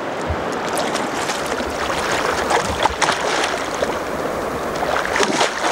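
River water rushing over stones, a steady noise, with a few short splashes as a hooked taimen thrashes at the surface.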